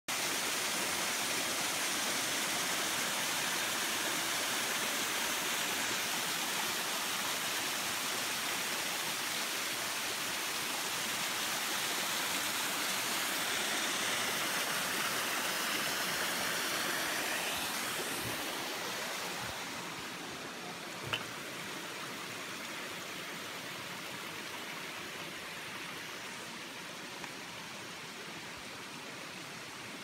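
Small forest waterfall splashing down over mossy rocks into a stream, a steady rush of falling water that grows a little fainter from about 18 seconds in. A single brief click a little after 21 seconds.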